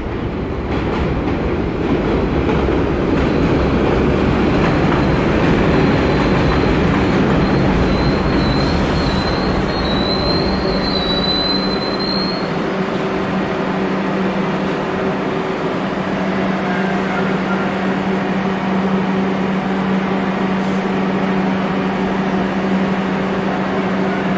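R62 subway train on the 3 line pulling into an elevated station: the wheels rumble over the track, with a high squeal from about three seconds in that lasts some ten seconds and cuts off. Once the rumble eases, a steady low hum comes from the train.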